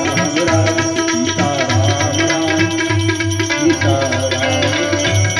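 Devotional bhajan music between sung lines: tabla and other hand percussion keep a steady beat with deep bass strokes about twice a second, under a sustained melodic accompaniment.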